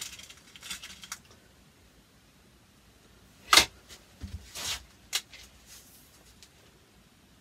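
Webley VMX .22 break-barrel spring air rifle being handled and readied between shots: a sharp click about three and a half seconds in, a short rasp about a second later, and another click just after five seconds.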